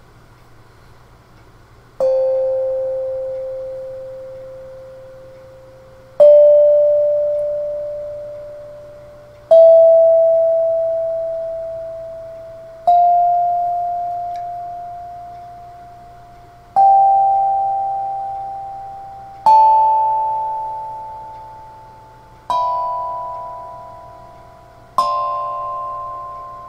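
A 6-inch, eight-note steel tongue drum in the key of C, struck with a mallet one tongue at a time: eight ringing notes that climb up its scale, each left to fade for a few seconds before the next.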